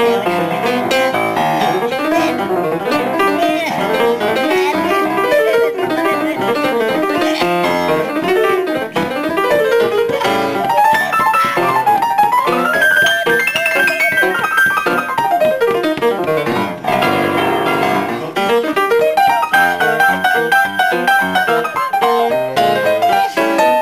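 Upright piano played solo, with fast runs sweeping down and back up the keyboard around the middle and a high note held for a few seconds, twice.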